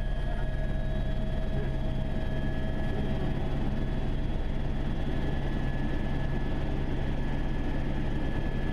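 Écureuil helicopter in flight, heard from inside the cabin: a steady low drone of rotor and engine with an even whine on top, unchanging throughout.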